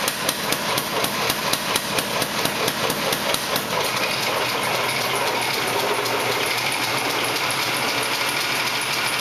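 Rapid, evenly spaced hammer blows on the forged steel spearhead, about four a second, stopping about three and a half seconds in. A steady mechanical running noise with a faint high whine follows.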